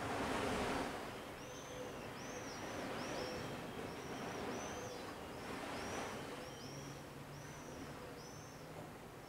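Mediterranean sea waves washing in and falling back about every three seconds, the biggest swell right at the start. A small bird sings a long run of quick, high, arched chirps over it.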